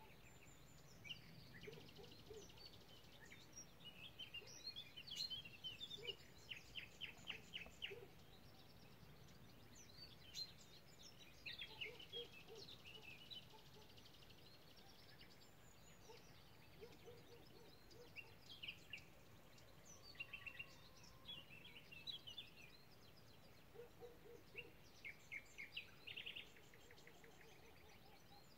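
Faint songbird song in separate phrases of chirps and quick trills, with short pauses between phrases.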